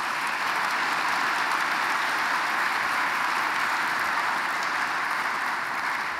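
Audience applauding, dense steady clapping that dies away near the end.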